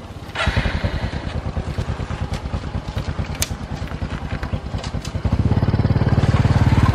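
A small engine running with a rapid, even putter, growing louder about five seconds in.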